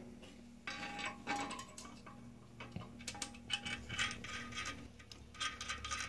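Light, irregular metallic clicks and scrapes of brass toilet tank bolts, washers and nuts being handled and fitted through the porcelain tank.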